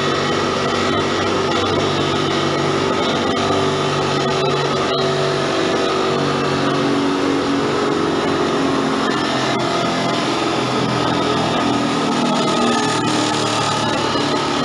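Wood sawdust machine running under load: its electric motor and rotating blades grind wood into sawdust with a steady, loud noise.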